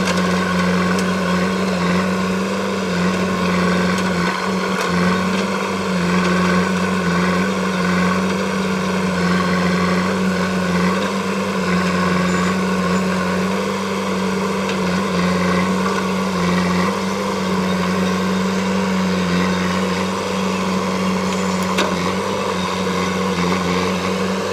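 JCB 3DX backhoe loader's diesel engine running steadily, a constant drone with no change in pitch.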